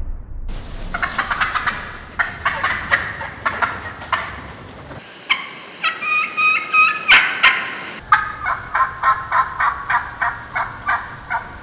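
Wild turkey hen cutting: fast, irregular runs of sharp clucks, broken in the middle by a few held yelps. This is the calling of an excited hen.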